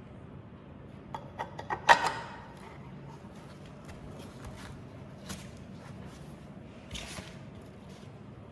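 Belt sander parts being handled and fitted during reassembly: a quick run of light clicks, then a sharper knock about two seconds in, with a few softer knocks and a short clatter later.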